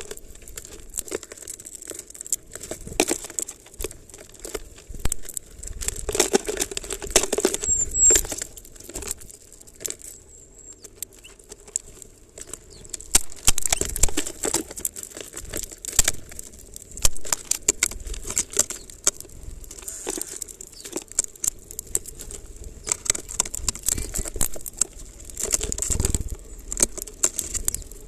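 Small birds feeding at a plastic-bottle seed feeder right by the microphone, a greenfinch among them: irregular clicks and crackles of beaks picking through and cracking sunflower seeds and knocking against the plastic, with rustling of loose seed and husks.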